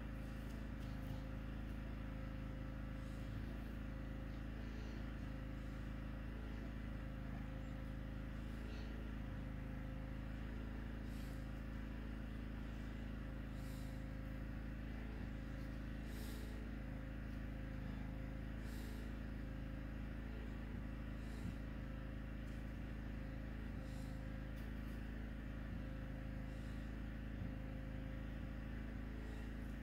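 A steady mechanical hum with a constant low drone and a thin, even tone above it, broken only by a few faint ticks.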